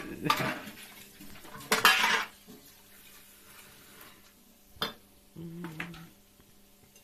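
Dishes and cutlery clattering at a kitchen sink as a few dishes are washed and set in a wire dish rack, the loudest clatter about two seconds in, then a single knock near five seconds.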